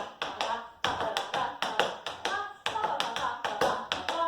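Tap shoes striking a floor in quick, rhythmic clusters of sharp metal taps: tap-dance time steps (hop, slam, brushes and taps) danced at a slightly faster tempo.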